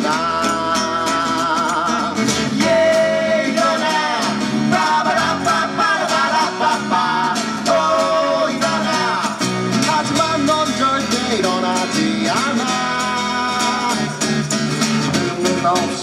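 Live band playing a song on electric bass and acoustic guitar, with a wavering melody line carried over the top.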